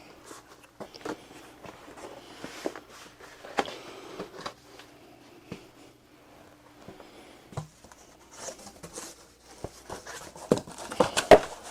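Handling noise: rustling and scattered light knocks and taps of a cardboard air-filter box being handled and moved, loudest near the end.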